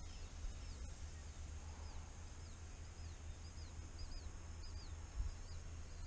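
A small bird calling with short, high downslurred chirps, repeated many times and often in quick pairs, over a low steady rumble.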